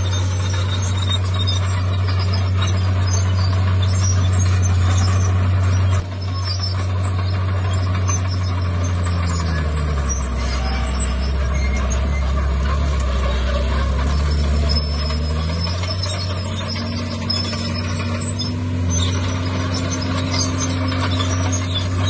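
Heavy diesel engine of a Komatsu bulldozer running steadily under load. About nine seconds in, the engine note drops lower for several seconds, then climbs back up. In the last few seconds a higher whine rises slowly.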